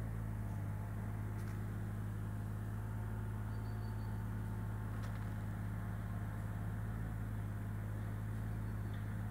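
A steady low hum that does not change, with a couple of faint clicks.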